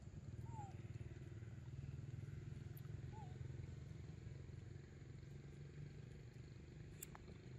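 Faint, steady low rumble with two short downward chirps and a single click near the end.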